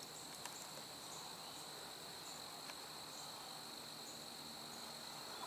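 Faint, steady chorus of crickets: a continuous high trill that does not break.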